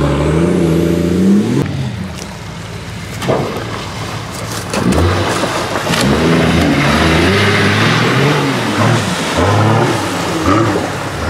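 Off-road 4x4 engine revving hard in repeated surges, its pitch swinging up and down as it works under load. It eases off about two seconds in and picks up again from about five seconds.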